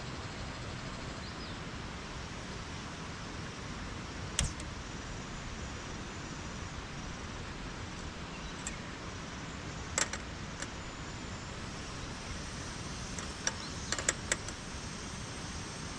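Steady hiss of falling or running water, with a handful of sharp clicks: one about four seconds in, two around ten seconds, and a quick cluster near fourteen seconds.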